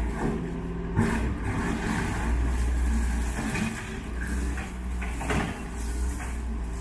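Doosan wheeled excavator's diesel engine running steadily while its bucket works through demolition rubble. Sharp knocks of broken concrete and debris come about a second in and again just past five seconds.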